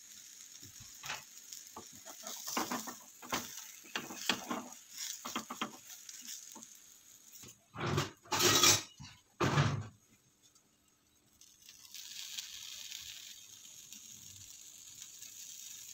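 Frying pan of omelette being handled on the stove: scattered clicks and scrapes, then a few loud clatters a little past the middle as the omelette is turned. After a short lull, a steady faint sizzle follows.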